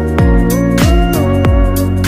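Background music with a steady beat: a deep kick drum about every two-thirds of a second under a smooth, gliding melody.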